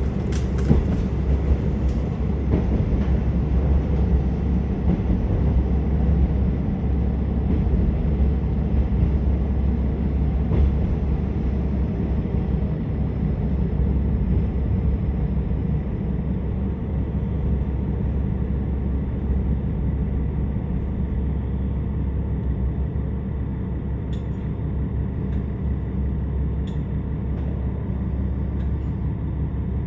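Cabin sound of a KiHa 47 diesel railcar under way: a steady low rumble of the engine and wheels on the rails. The rumble eases a little over the second half as the train slows for its next stop, with a few light clicks near the end.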